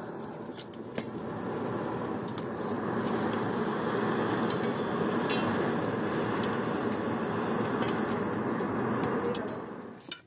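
Hand-cranked forge blower, driven by a bicycle-wheel pulley and belt, forcing air into a clay forge's fire: a steady rush of air that builds over the first couple of seconds, with faint crackles, and stops abruptly near the end.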